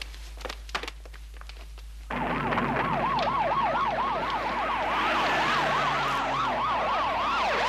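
After a few faint clicks, about two seconds in, emergency-vehicle sirens from a fire engine and an ambulance start abruptly and loud. Several fast yelping sirens overlap, each rising and falling about three times a second.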